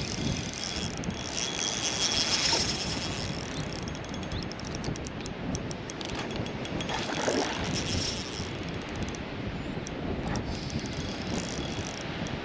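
Spinning reel being cranked to retrieve a lure, its gears ticking rapidly in spells, over wind buffeting the microphone.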